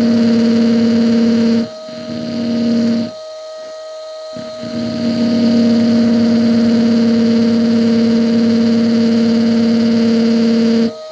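Electric drill running with a steady whine, an ordinary (non-glass) bit drilling into windshield glass at the tip of a crack to stop-drill it. It eases off twice in the first few seconds, then runs steadily and stops just before the end.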